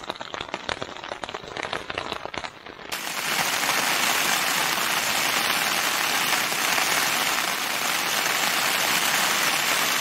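Heavy rain falling on a tent's fly sheet, heard from inside. It starts as separate drops tapping, then about three seconds in changes abruptly to a dense, steady hiss of downpour.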